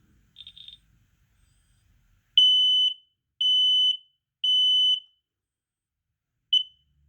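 Smoke alarm horn sounding the temporal-three evacuation pattern: three loud, shrill half-second beeps half a second apart, then after a pause a short start of the next beep that cuts off. Before them, a couple of faint, weak chirps come from an alarm whose horn is malfunctioning.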